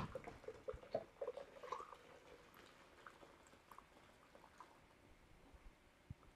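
Faint dripping and trickling of hot tea poured from a stainless-steel pot through a fine mesh strainer into a blender jar. It thins out after about two seconds to a few scattered small ticks.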